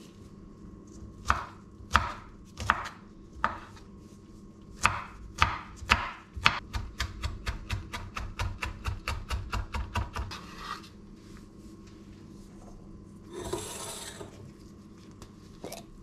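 Chef's knife chopping garlic on a bamboo cutting board: a few separate cuts about a second apart, then a quick, even run of about four chops a second as the garlic is minced, stopping after about ten seconds. A short scrape follows near the end.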